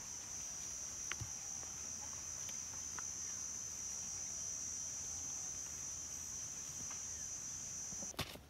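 Steady high-pitched drone of forest insects, with a few faint taps and scrapes of a pointed stick digging into soil. Near the end the drone cuts off suddenly and a few sharper knocks follow.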